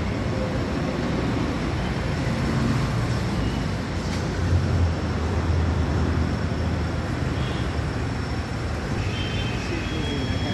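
Steady rumble of road traffic, swelling briefly about four and a half seconds in.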